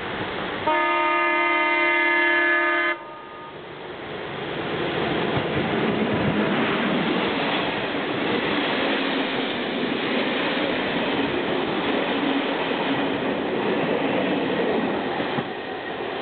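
Czech class 163 electric locomotive sounds one long horn blast of about two seconds, about a second in. The express train then rushes past at speed, a steady loud roar of wheels clattering over the rails as the carriages go by.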